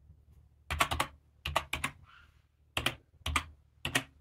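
Computer keyboard being typed on in small irregular clusters of two or three keystrokes, with short pauses between them.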